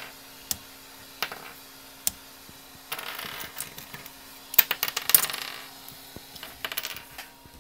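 Small hard-plastic 3D-printed arrow nocks being popped off a glass printer bed and handled, a series of sharp clicks and light clinking, busiest about five seconds in, over a faint steady hum.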